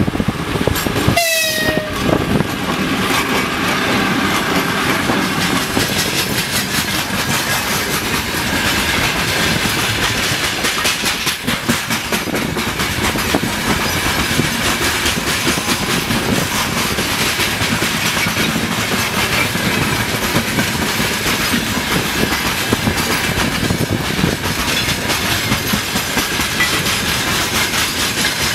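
An electric freight locomotive, the 2ES10 "Granit", gives a short horn blast about a second in, its pitch falling slightly. A freight train then runs past, a steady heavy rumble with wheels clattering over the rail joints.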